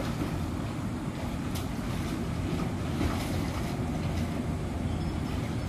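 Steady low rumble of wind buffeting the microphone, mixed with water washing, with a few faint splashy ticks.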